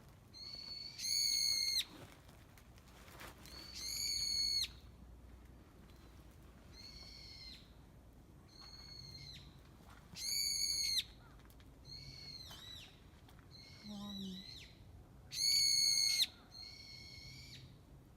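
A bird calling over and over: a string of loud, high, ringing calls, each under a second long, a second or two apart, some louder and longer than others.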